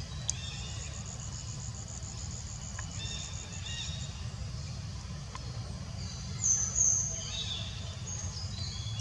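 Outdoor forest ambience: an insect trills high and steady for the first few seconds while birds chirp with short high whistles, over a steady low rumble. Two louder high chirps come about six and a half seconds in.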